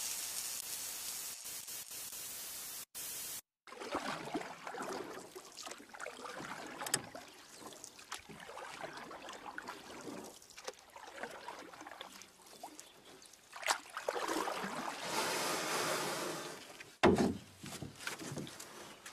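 River water sloshing and lapping in irregular swells, with a few knocks and one sharp knock near the end. Before it, a hiss fades and cuts off about three seconds in.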